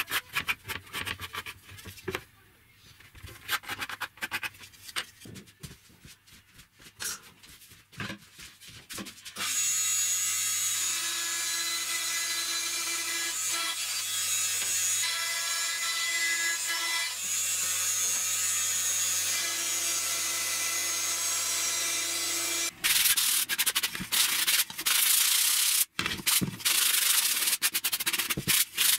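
Light scratching and tapping of a pencil tracing a template on plywood. About nine seconds in, a benchtop band saw starts and runs steadily for about thirteen seconds, its tone shifting as it cuts plywood. After it stops, a sanding block rubs the cut plywood edges in quick back-and-forth strokes.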